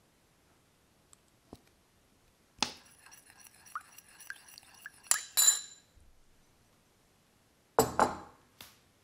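A metal spoon stirs sauce in a small ceramic bowl, clinking against its sides, so the bowl rings for a couple of seconds under light taps, then gives two sharper clinks. Near the end comes a pair of heavier knocks of a bowl set down on a wooden table.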